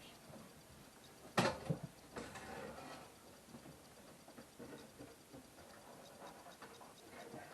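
A sharp knock about a second and a half in, then faint clattering and handling noises of gear being moved, with a faint steady ticking.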